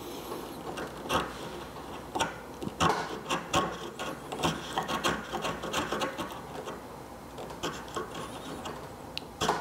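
Hand paring with a Narex bench chisel, shaving a wooden tenon: a run of short scraping strokes of steel on wood, coming at an uneven pace.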